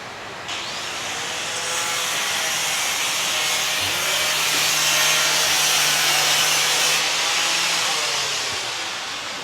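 A power tool running with a high, whining hiss. It starts sharply, holds steady for several seconds and fades away near the end.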